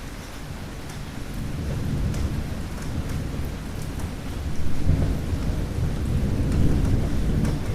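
Thunderstorm: steady rain with scattered drops, under rolling thunder that builds about a second and a half in and peaks twice, around the middle and again near the end.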